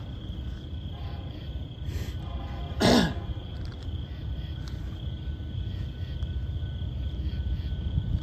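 Night insects chirping steadily over a low rumble. About three seconds in, a brief loud call slides sharply down in pitch.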